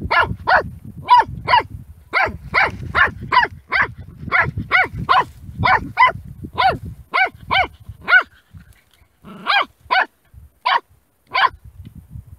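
Puppy barking at a snake: a fast run of short barks, about two to three a second, thinning to a few spaced barks over the last four seconds.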